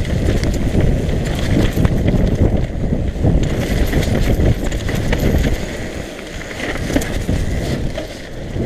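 Mountain bike descending a dirt trail at speed: a steady low rumble of tyres on the ground and air rushing past, with frequent rattling knocks from the bike over bumps. It eases a little about six seconds in, then picks up again.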